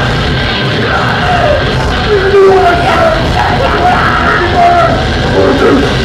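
Live heavy metal band playing loudly, distorted electric guitars and a dense, driving band sound with yelling over it.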